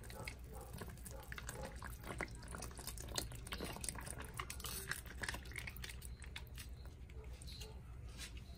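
Pot of chicken broth simmering, with irregular small bubbling pops and crackles, while tomato sauce is poured into it. A steady low hum runs underneath.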